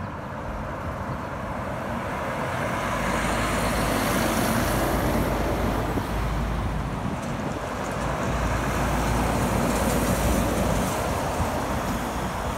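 Heavy truck's diesel engine and tyre noise as it comes through a roundabout and passes close by. It grows louder over the first few seconds, eases midway, then swells again about ten seconds in.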